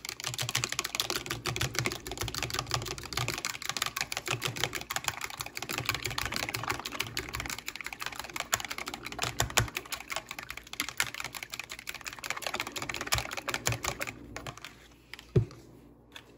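Raw eggs beaten by hand in a plastic container, the utensil clicking fast and evenly against the container's sides. The beating stops about two seconds before the end, followed by a single knock.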